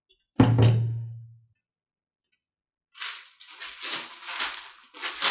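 A single thump with a short low ring about half a second in. From about 3 s in, crackling, rustling plastic wrapping and cardboard as the office chair's five-star base is lifted out of its box.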